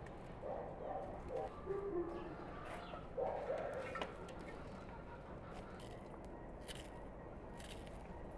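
A dove cooing a few short low phrases in the first few seconds, over a faint steady background.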